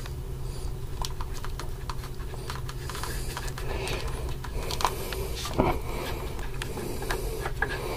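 Sparse light clicks and small metallic taps as a magnesium anode is unscrewed by hand from a fire pump body, its threads and the fingers working against metal, over a steady low hum.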